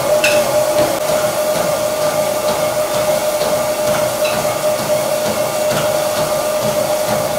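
Treadmill running at walking speed: a steady motor whine and belt hum, with a few soft footfalls on the moving belt.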